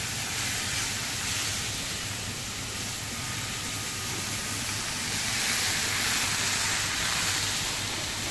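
Steady hissing from the stove area while fried cod is lifted out of a frying pan of hot oil, swelling a little about five seconds in, over a faint low hum.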